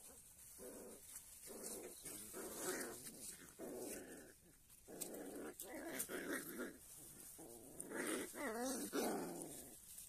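Young puppies growling as they play-fight, a string of short growls with a longer cry of wavering pitch about eight and a half seconds in.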